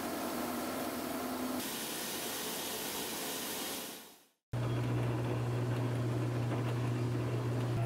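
Tape-slitting and rewinding machine running: a steady whir and hiss of rolls spinning, with a few faint steady tones. The sound fades out briefly about four seconds in and comes back as steady machine noise with a strong low hum.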